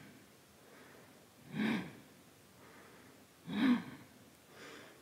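A woman's audible breaths into a close microphone: two short, sharp exhales about two seconds apart, then a fainter one near the end, keeping time with repeated heel-lift pulses of a held lunge.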